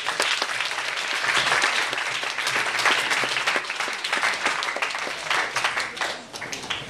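Audience applauding, many hands clapping at once, the clapping thinning out near the end.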